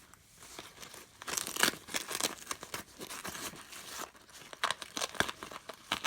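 Crinkling and rustling of plastic packaging being handled, in irregular crackly bursts that start about a second in.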